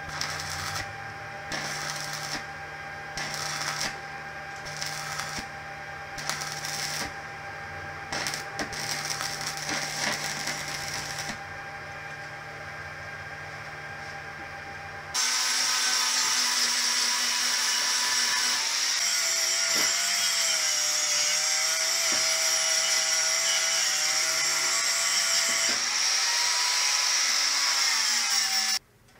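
Stick (arc) welding on thin steel tube: the arc crackles in short bursts about once a second, struck and broken again and again, over a steady hum. About halfway through, a much louder angle grinder with an abrasive disc starts grinding the steel tube, its whine dipping now and then under load, and it stops suddenly shortly before the end.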